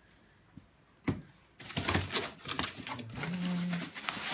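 Cardboard box and its cardboard inserts being handled. A single sharp knock comes about a second in, then a run of taps, scrapes and rustles as hands dig into the box, with a brief low hum in the middle.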